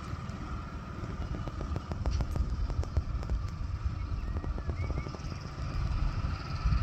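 Outdoor ambience: a low, uneven rumble throughout, a steady high hum, and a run of light clicks through the middle, with two short chirps near the end of the clicks.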